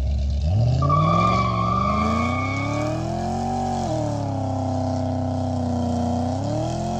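Pontiac G8's V8 revving hard through a burnout, the revs climbing over the first few seconds, easing off around four seconds in, holding, then rising again near the end. A high steady tyre squeal rides over the engine for the first couple of seconds as the rear tyres spin and smoke.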